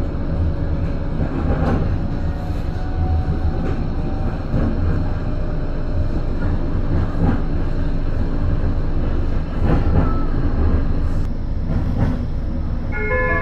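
Bombardier Flexity 2 tram running along its track, heard from inside the car: a steady low rumble with irregular knocks every second or two from the wheels on the rails.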